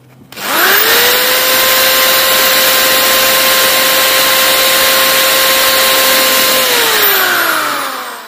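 Electric drill spinning up to full speed, running with a steady high whine for about six seconds, then winding down as the trigger is released.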